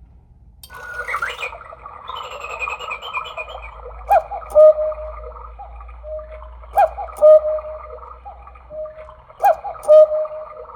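A battery quartz cuckoo clock plays its electronic cuckoo call, a short higher note then a longer lower "cu-ckoo". The call repeats three times, about every two and a half seconds, over a backdrop of recorded birdsong that starts just before.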